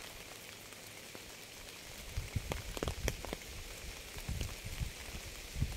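Steady rain hiss with individual raindrops tapping and thudding close by. The drops come thicker from about two seconds in.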